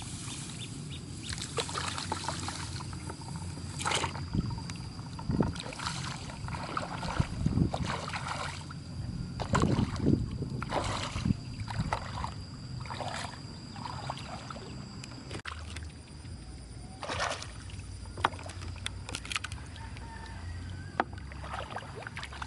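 Irregular splashing and sloshing of muddy water as hands work in a shallow hole, with a faint steady high tone underneath.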